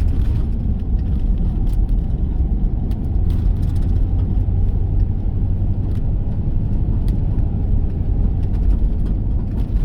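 Steady road and engine noise inside a moving car's cabin: a low rumble with a steady hum underneath.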